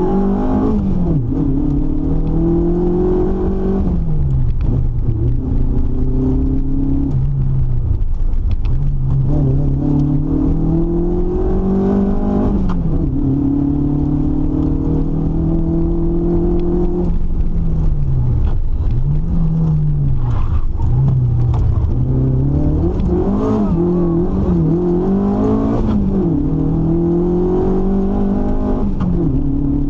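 Competition car's engine heard from inside the cabin, pulling hard up through the revs and dropping sharply again and again as the driver shifts gears and lifts for corners on a hill climb run.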